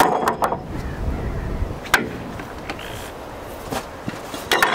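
Metal clanks and clicks of a 105 mm howitzer's breech being loaded by hand, as the round and cartridge case are pushed in. A cluster of knocks comes at the start, a single one about two seconds in and another cluster near the end, over a low rumble.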